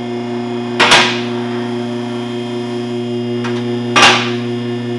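Two-post car lift raising a car: its electric hydraulic pump motor runs with a steady hum, and the lift's safety locks clank into place once about a second in and again about four seconds in.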